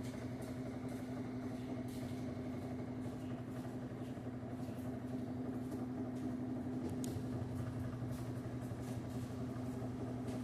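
LG Turbo Drum washing machine running its spin cycle: a steady motor and drum hum at constant speed, with a few faint ticks.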